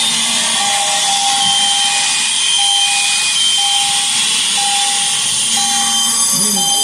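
Several fire alarms sounding together in a loud, continuous buzzing din, with one tone pulsing on and off about once a second.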